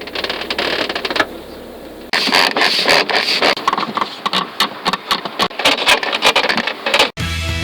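Interior trim of a 2009 BMW X5 squeaking and rattling inside the cabin: a dense run of short clicks, creaks and knocks, much busier from about two seconds in. These are the cabin squeaks, 'crickets' and rattles that call for anti-squeak treatment. Music cuts in near the end.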